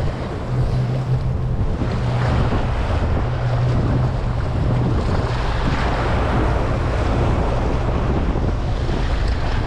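Wind blowing across the microphone over the steady wash of choppy sea waves, with heavy low buffeting throughout.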